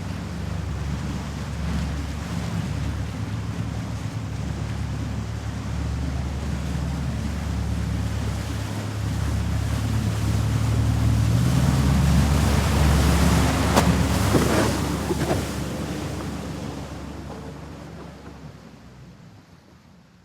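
Four-engine Douglas DC-8 jet airliner's engines rumbling. The sound swells to a peak about two-thirds of the way through, with a brief higher whine, then fades away.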